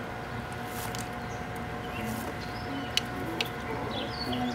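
Small birds chirping now and then over a steady background hum. Two sharp clicks about three seconds in come from hands working the wiring and plastic tail section of the motorcycle.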